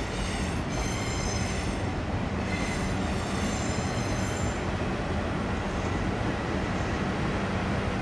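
Passenger train moving through the station, its wheels squealing in high-pitched bursts over a steady low rumble; the squeal dies away about four and a half seconds in.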